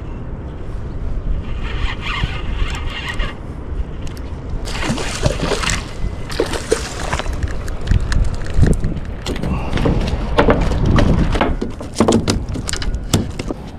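Wind buffeting the microphone over water sloshing and lapping, with a run of sharp clicks and rattles in the second half.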